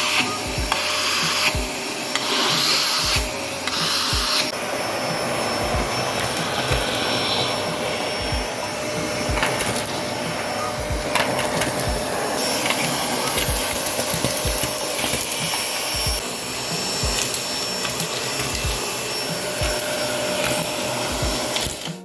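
Vacuum cleaner running at full suction, a loud steady rushing hiss, with a faint music beat thumping underneath.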